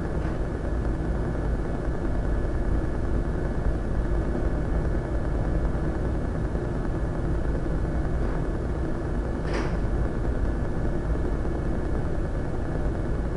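Steady low mechanical hum with a faint steady high whine, with a short soft rustle about nine and a half seconds in.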